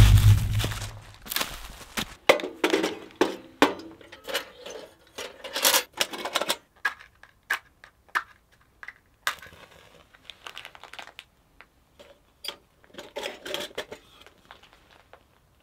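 A deep thud at the start, then irregular rustling, crunching and small clicks and clinks of a person moving about on a leaf-covered floor and handling things in the dark. The sounds thin out near the end as an oil hurricane lantern is lit.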